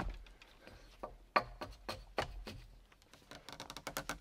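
Irregular knocks, scrapes and clicks of someone climbing a lashed wooden pole frame, hands and feet gripping and pushing on the poles, with a quick run of clicks near the end.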